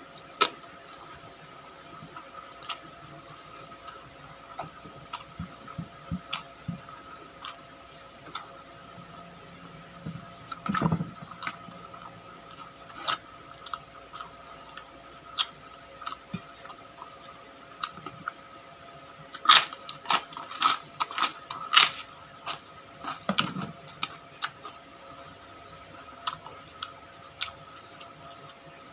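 A person chewing and biting crispy fried food close to the microphone, with irregular crunches and mouth clicks. A louder run of crunches comes about two-thirds of the way through.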